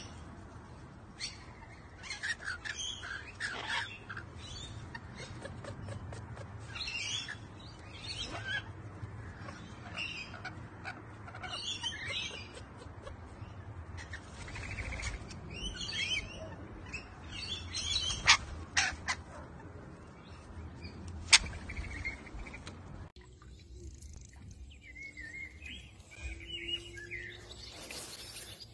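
Rainbow lorikeets giving repeated short, high chirping calls, with two sharp clicks about three seconds apart in the second half. Near the end the sound changes suddenly to quieter, softer peeping from ducklings.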